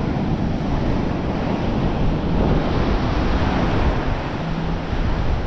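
Ocean surf washing onto the beach, a steady rush of waves, with wind buffeting the microphone.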